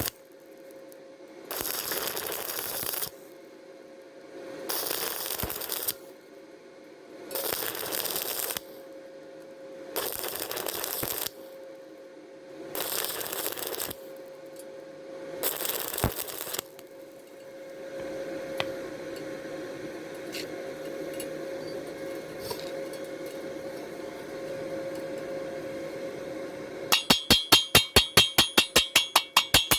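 Stick welding arc crackling and hissing in six short runs of about a second and a half, with brief pauses between them, as short stitch welds are laid on thin square steel tube with a 2.5 mm rod at 75 amps. A longer, quieter run follows. Near the end come rapid, evenly spaced metal strikes, about seven a second, that ring like a hammer on the steel tube.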